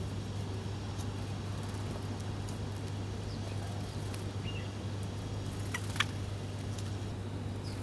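Birds giving a few short, faint chirps over a steady low hum, with one sharp click about six seconds in.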